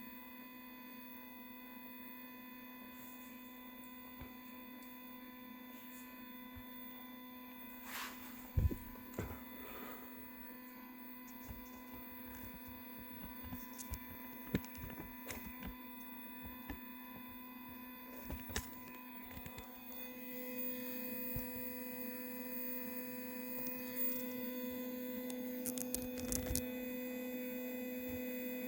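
Stepper motors of an OnStep GoTo drive on a 10-inch Dobsonian, whining with a steady hum as they slew the telescope. The hum gets louder about two-thirds of the way through, and a few clicks and knocks come through now and then.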